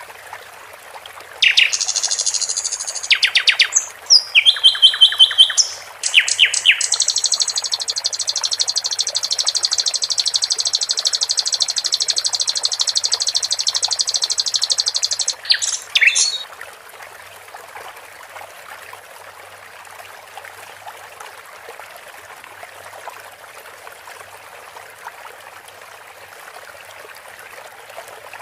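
Sikatan londo songbird singing over a steady trickle of running water. The song opens with a few seconds of varied, loud, high phrases, then runs into one long, fast trill of about nine seconds, and ends with a couple of sharp notes. After that the water trickle carries on alone for the last ten seconds or so.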